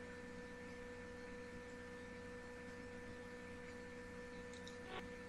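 Faint, steady electrical hum made of a few fixed tones over quiet background noise, with one soft tick near the end.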